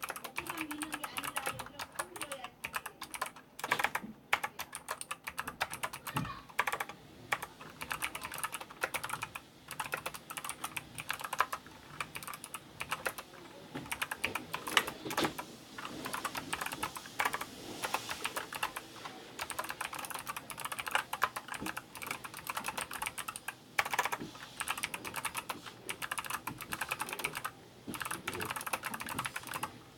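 Typing on an ABKO K660 keyboard with Kailh optical switches: a continuous run of fast, dense keystroke clicks with brief pauses.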